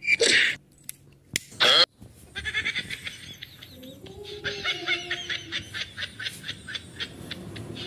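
A cat gives two short, loud meow-like calls in the first two seconds. After that comes a quieter stretch of rapid high chattering and clicking.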